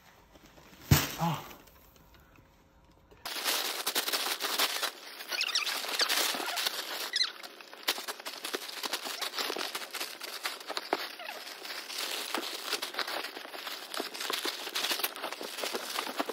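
Plastic bags and poly-bagged clothes rustling and crinkling as they are handled, with many small sharp crackles, starting a few seconds in. Before that, a single loud knock about a second in.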